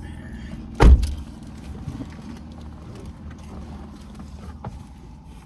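Car running, heard from inside the cabin: a steady low rumble, with one heavy thump a little under a second in.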